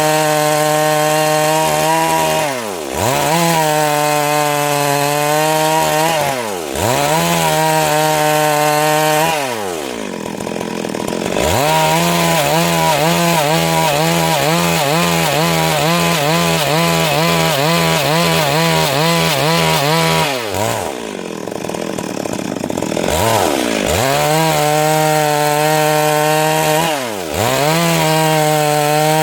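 Stihl MS 382 two-stroke chainsaw running at full throttle, cutting through Siris wood, its pitch wavering under load. The revs drop back briefly several times, with longer lulls about a third of the way in and about three-quarters of the way in.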